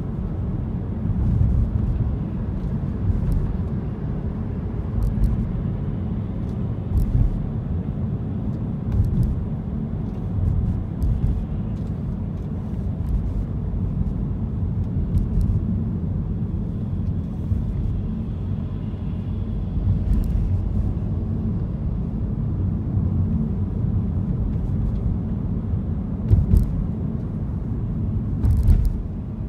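A car driving, heard as a steady low rumble of engine and road noise, with a dozen short knocks or clicks scattered through it.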